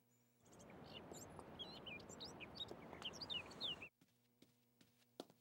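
Faint bird chirps, many short high calls over a soft steady hiss, starting about half a second in and cutting off suddenly just before four seconds.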